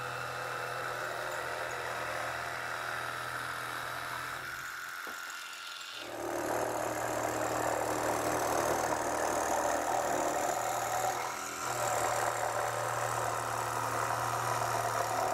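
Proxxon SS 230/E mini jigsaw running, its reciprocating blade sawing through a thin wood sheet with a steady motor hum. The sound drops out briefly about five seconds in, then resumes louder with more sawing noise.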